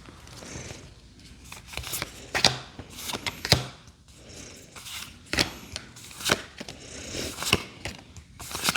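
Pokémon trading cards being handled and flipped through one by one, with a sharp card flick about once a second over a soft rustle.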